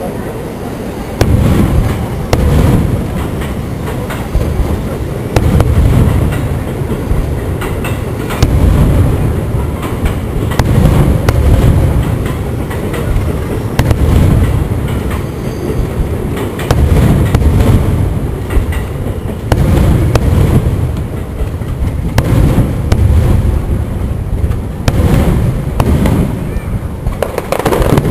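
Aerial firework shells bursting in quick succession: repeated sharp booms and cracks over a continuous low rumble, thickening into overlapping bursts near the end.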